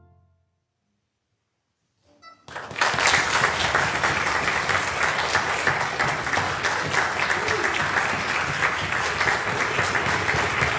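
The last sustained chord of the string orchestra and horns fades away, and after about two seconds of silence the audience breaks into applause, which goes on steadily.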